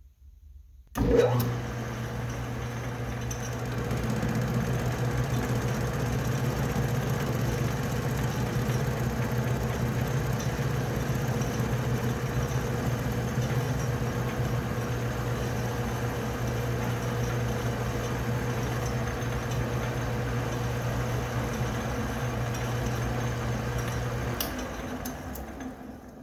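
Metal lathe switched on with a sudden start about a second in and running steadily with a hum for about twenty seconds, then switched off and winding down near the end.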